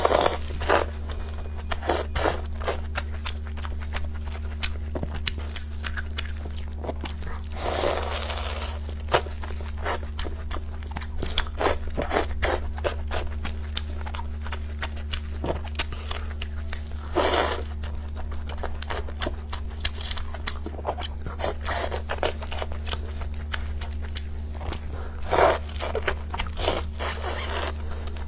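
Close-miked ASMR eating: crunching and chewing with many small mouth clicks, and a few longer, louder crunchy bites spread through, over a steady low hum.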